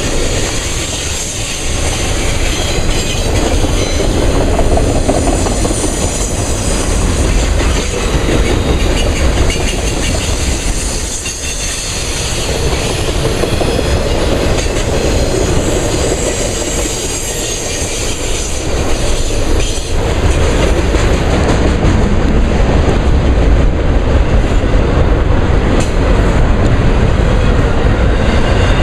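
Union Pacific intermodal freight train's cars rolling past close by: steady rumble and rattle of steel wheels on the rails, easing a little in places without stopping.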